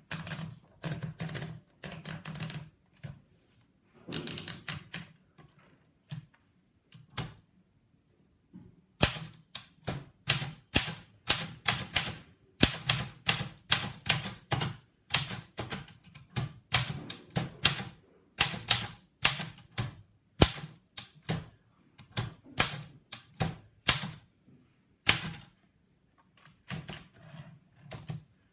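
Patria manual typewriter being typed on: sharp key strikes in short irregular runs, a pause of a couple of seconds, then quicker steady typing.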